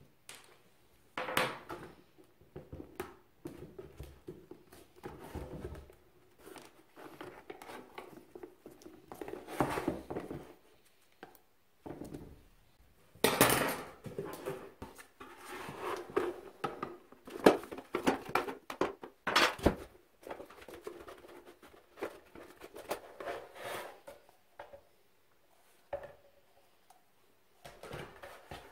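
Parts of a Honda CR250R's plastic airbox being handled on a workbench: irregular knocks, clatter and scraping as pieces are moved and set down, with a cluster of louder knocks about halfway through.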